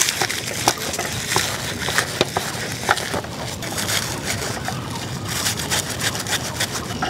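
A wad of khoksa leaves rubbed and crushed against slippery magur catfish on a metal platter, cleaning the fish's skin: a steady rustling scrape with irregular crackles and clicks.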